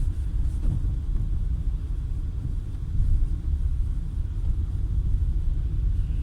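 Steady low rumble from a 2012 Peugeot 408, a little louder about three seconds in; the car has a knock in its front end.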